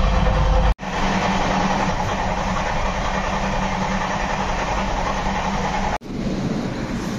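Passenger train running, heard from inside the coach: a steady rumble and rail noise. The sound drops out abruptly twice, once under a second in and again near the end.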